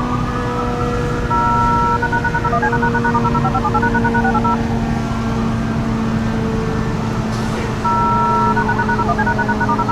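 ACA Hurricane 130 MKII outdoor warning siren sounding a rising-and-falling wail, the Attack signal. Its pitch climbs and sinks over several seconds and pulses rapidly near the top of each rise, over steady lower tones.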